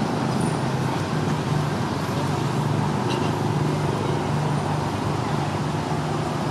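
Steady low hum of motor traffic running without a break.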